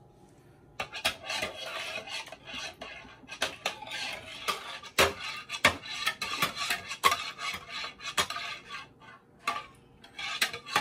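A utensil stirring liquid in a mixing bowl, scraping and clinking against the sides: the eggs, water and oil for a brownie batter being mixed by hand. It starts about a second in, keeps going with many small knocks, pauses briefly near the end, then resumes.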